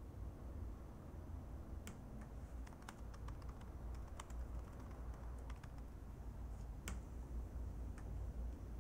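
Typing on a laptop keyboard: irregular, scattered keystrokes starting about two seconds in, over a faint low rumble.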